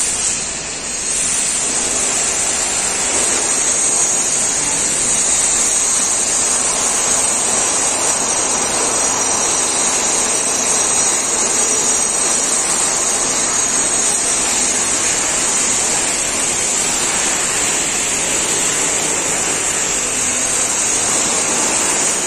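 Steady, loud rushing noise of jet airliner engines on an airport apron, with a high whine running through it.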